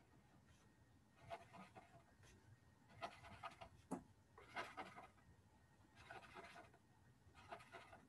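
Faint scratching of a felt-tip marker dabbing dots onto paper, in short strokes every second or so.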